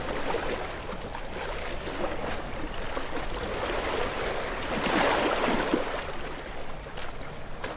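Waves washing onto the shore in a steady wash of water, with one wave swelling and breaking louder about five seconds in.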